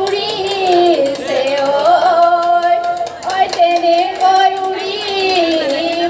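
Women singing a Jeng Bihu song in Assamese, a continuous melody of long, wavering held notes, amplified through stage loudspeakers.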